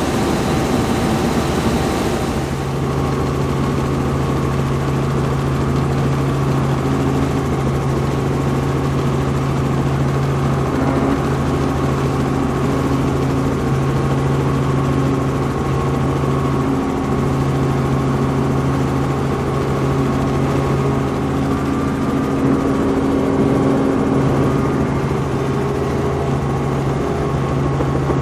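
Robinson R44 helicopter heard inside the cabin in flight: the engine and rotor drone steadily with a constant low hum. About two seconds in the hiss drops and the low hum comes up stronger.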